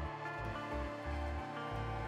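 Soft background music with sustained notes over a low bass that pulses on and off.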